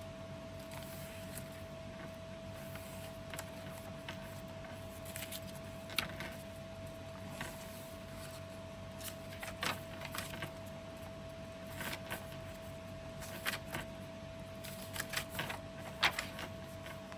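Paper pages of a handmade junk journal being turned and handled: scattered rustles and soft taps, a handful of them sharper, over a faint steady hum.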